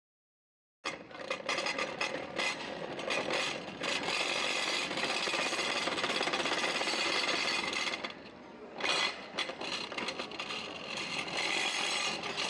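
A power tool running, starting abruptly about a second in, dropping away briefly around eight seconds and then running again.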